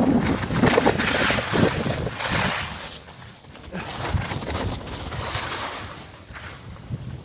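Wind rushing over the microphone during a ski run, with skis hissing and scraping across the snow in surges. It is louder in the first few seconds, then drops away.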